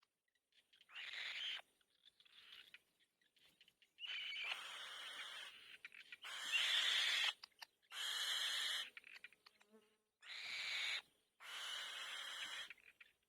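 Young bird giving harsh, hissing begging calls, about seven separate screeches of half a second to a second and a half each, asking to be fed.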